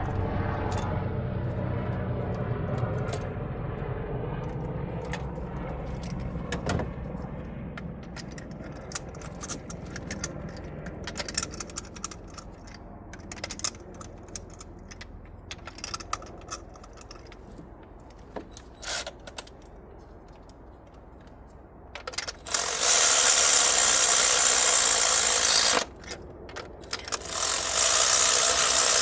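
Spark plugs being cleaned by hand: scattered clicks and taps of parts and tools, then two loud hissing blasts of about three seconds each, a second apart, near the end.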